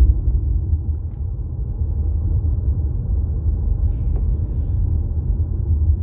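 Steady low rumble of road and engine noise inside an Infiniti sedan's cabin while it is being driven, with one faint click about four seconds in.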